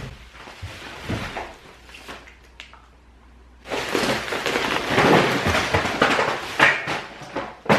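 A few soft knocks of cardboard snack boxes, then several seconds of loud crinkling and rustling of a plastic bubble-wrap bag being handled, ending in a sharp knock.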